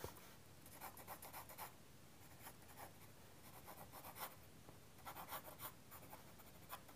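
Faint pencil strokes scratching on sketching paper, in several short runs with pauses between.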